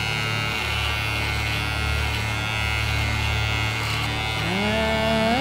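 Corded electric hair clippers buzzing steadily as they cut through a beard. Background music comes in near the end.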